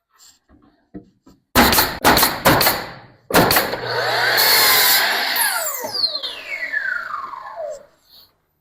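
A few sharp knocks, then an electric saw starts up and cuts a wood board. When it is released, the blade winds down with a falling whine that dies away over about two seconds.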